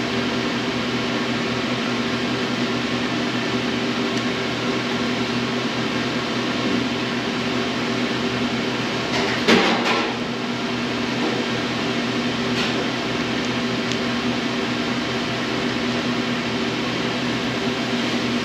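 Steady mechanical hum with a couple of low droning tones, like an air-conditioning unit or fan, with one brief sharp noise about halfway through.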